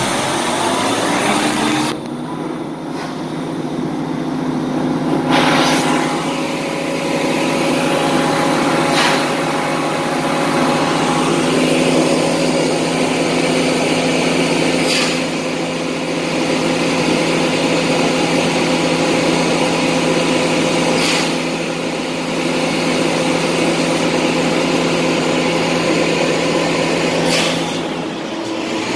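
JCB telehandler's diesel engine running steadily. It cuts in abruptly at the start and settles within a couple of seconds. A few short, sharp hisses come several seconds apart.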